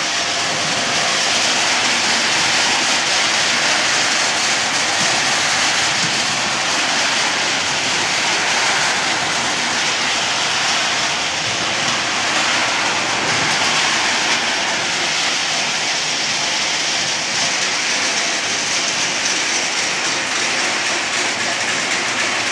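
Betel nut polishing machine running: nuts tumble and rattle inside its rotating perforated steel drum in a steady, dense clatter.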